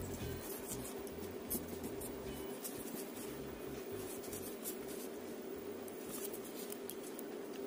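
Jumper wires being handled and plugged onto the header pins of a relay board and an Arduino Uno: scattered light clicks and rustles, over a steady hum.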